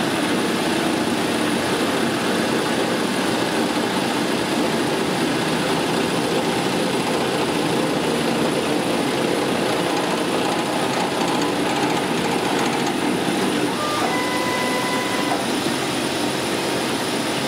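Converted Harbor Freight mill-drill running at 850 RPM, its 3/8-inch two-flute end mill cutting a helical hole into half-inch hot-rolled steel: a steady motor-and-cutting noise. A brief high-pitched tone sounds for about a second near the end.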